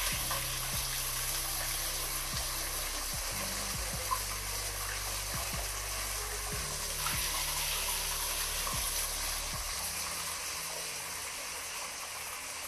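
Steady splashing and rushing of water in a koi pool crowded with feeding koi, with soft background music underneath.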